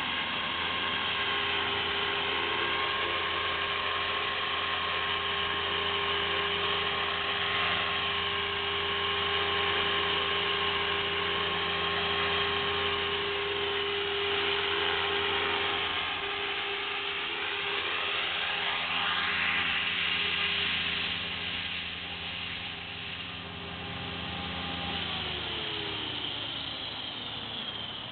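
Align T-Rex 500 electric RC helicopter running: a steady whine from the brushless motor and gears over the hum of the rotor blades, wavering slightly in pitch. Near the end the tones slide down in pitch and the low hum stops.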